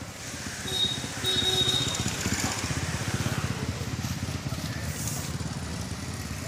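A motor vehicle engine running with a steady low throb, growing louder about a second in and then slowly easing off.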